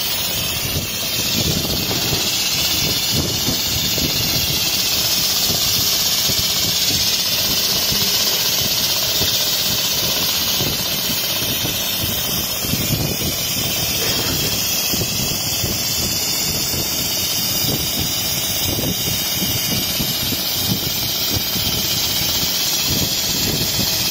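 Richpeace computerised non-stop sewing machine running steadily as its head stitches a quilting pattern, a fast mechanical chatter under a loud, even hiss.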